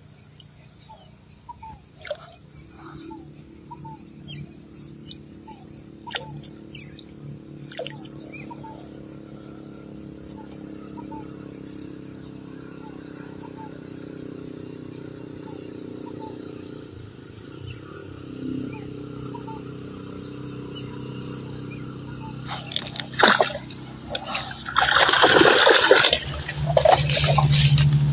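Steady insect buzz and scattered small bird chirps over a quiet waterside, then from about 22 seconds in loud, repeated splashing of water, typical of a hooked fish thrashing at the surface after a hard hook-set.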